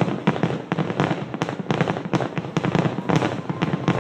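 Fireworks going off in a dense, irregular string of sharp bangs and crackles, several a second, over a continuous rumble.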